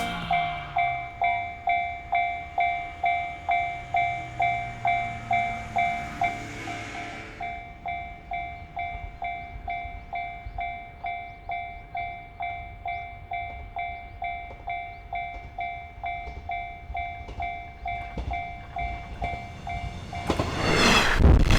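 Railway level-crossing warning bell ringing steadily, about two strikes a second. About a second and a half before the end, a JR Hachikō Line diesel train reaches the crossing and its passing noise comes in loud, drowning the bell.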